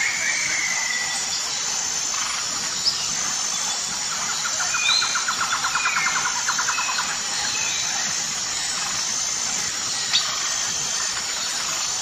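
Several birds calling over a steady high hiss of forest insects: short chirps and whistles, with a rapid trill about halfway through and two brief sharp ticks.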